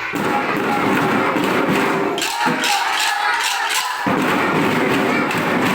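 A group of marching-band drums being struck together in basic practice strokes, with a run of quick hits a couple of seconds in.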